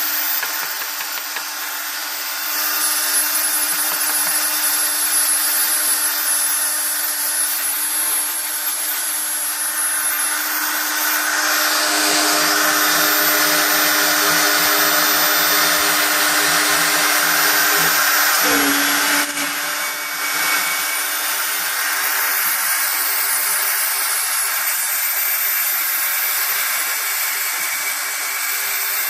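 CNC router spindle running with a steady high whine while the cutter mills aluminium tread plate. The cutting gets louder and rougher through the middle, with a brief drop in pitch about two thirds of the way in.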